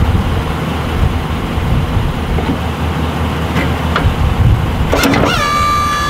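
Truck engine idling steadily, with a couple of sharp clicks partway through. About five seconds in, a high whine rises quickly and then holds at a steady pitch.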